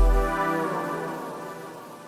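End-screen music: a held brass-like chord slowly fading away.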